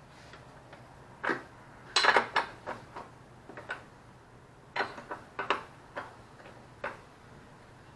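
Irregular sharp metallic clicks and clinks, some in quick clusters about two and five seconds in, from hand tools and metal parts being handled.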